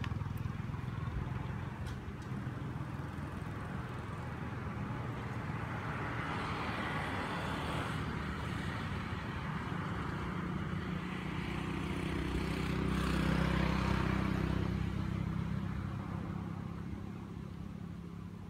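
A motor vehicle passing, its engine and road noise swelling to a peak a little past the middle and then fading away.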